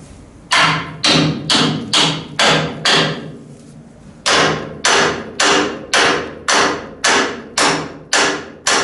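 Hand hammer striking a stuck steel bracket on the frame of a 1953 Chevrolet 3100 truck, about two sharp metallic blows a second: a run of six, a pause of about a second, then ten more. The blows are knocking the bracket free where it is bolted together with the frame crossmember and snagged by a slight misalignment.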